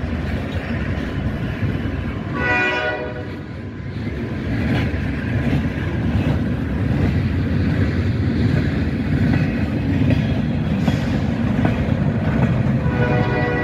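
Freight train rolling past, a steady rumble and clatter of freight car wheels on the rails. A locomotive horn sounds one short chord about two and a half seconds in, and another begins near the end.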